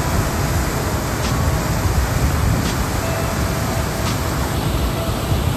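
Steady, loud rush of water pouring through the spillway gates of the Hamlin Lake dam and churning in the outflow below.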